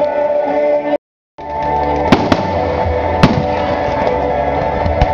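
Fireworks exploding over steady music, with sharp bangs about two seconds in, another just after, a third about a second later and a fourth near the end. The sound drops out completely for a moment about a second in.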